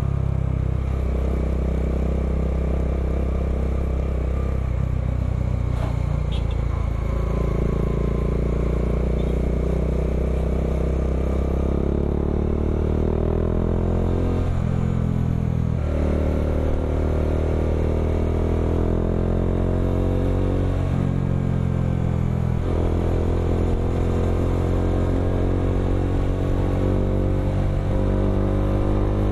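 Bajaj Dominar 400 UG2's single-cylinder engine through an aftermarket Akrapovic M1 exhaust, under way: the engine note climbs in pitch with acceleration and drops at each gear change, several times over.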